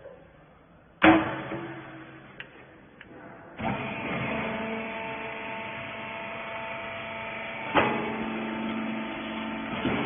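Hydraulic wiper-rag baler: a loud metal clank about a second in as its chamber lid is shut, then from about three and a half seconds in the press runs with a steady motor-and-pump hum, with another sharp clunk near the end as it compresses the rags into a cube bale.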